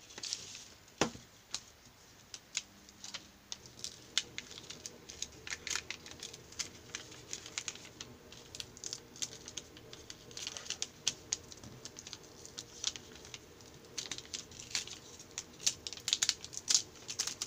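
A paper sheet rustling and crinkling, with many small sharp crackles, as fingers handle it and peel a thin 3D-pen plastic piece off it.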